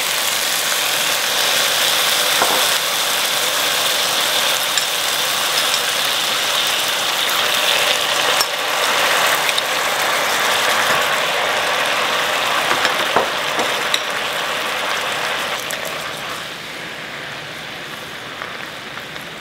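Soy sauce and sake sizzling and bubbling hard in a hot enamelled cast-iron pot with melted beef fat, sugar and sliced wagyu beef, a loud, steady crackling sizzle that eases a little near the end.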